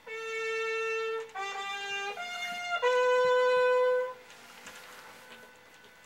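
Music from a vinyl record just put on the turntable: a horn-like wind instrument starts suddenly with a long held note, then plays a few shorter notes at changing pitches, then a louder long note that stops about four seconds in, leaving something quieter behind.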